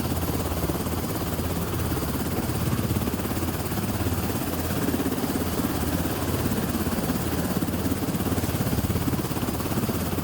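Aircraft noise: a steady, loud roar with a heavy low rumble that holds unchanged throughout.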